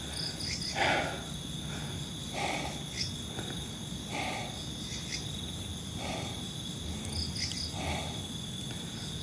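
Insects trilling steadily at a high pitch, with a soft rushing sound that swells about every second and a half.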